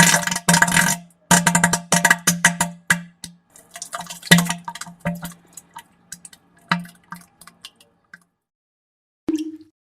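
Wet, sputtering diarrhea fart: a low buzzing tone broken up by rapid crackling pops, fading out after about eight seconds, then a short higher-pitched squeak near the end.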